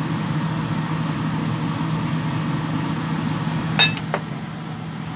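Steady low electric hum of a kitchen appliance motor. About four seconds in comes one sharp clink with a brief ring, as of kitchenware being set down, followed by a softer tap.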